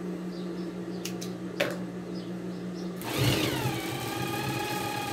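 Industrial straight-stitch sewing machine with its motor humming steadily, and a couple of scissor snips as loose threads are trimmed. About three seconds in, the machine starts stitching: a whine that drops in pitch, then runs steadily.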